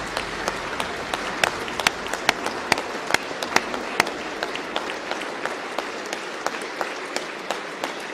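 Members of parliament applauding in the chamber: a steady clatter of many hands, with single louder claps standing out at a fairly even beat in the first half.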